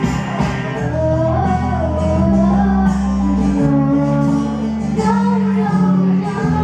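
A young girl singing into a microphone over a recorded country-pop backing track with guitar.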